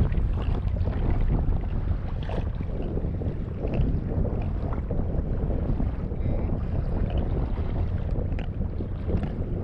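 Wind rumbling on the microphone over water lapping against a kayak on a choppy sea, with a few faint clicks.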